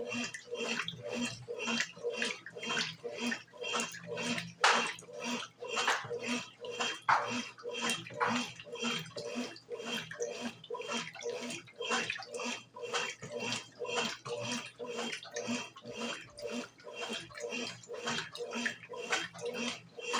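Brastemp BWG11 washing machine agitating a load of bedding and towels: water and wet laundry sloshing in the tub in a steady rhythm of about two to three splashes a second.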